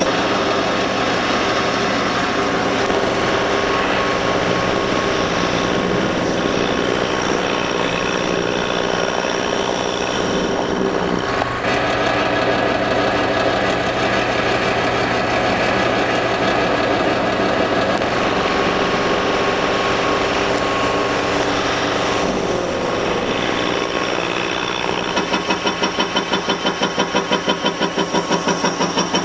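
Metal lathe taking a facing cut across a rough steel blank: the motor and drive run steadily under the tool cutting the spinning face. Near the end the sound starts to pulse about three times a second.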